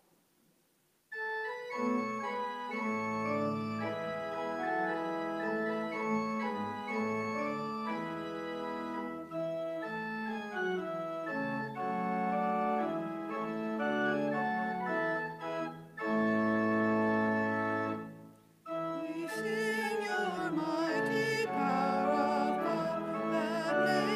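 Church organ playing a hymn introduction in sustained chords. After a brief pause it starts again, and from about nineteen seconds in a singer's voice joins, singing the first verse over the organ.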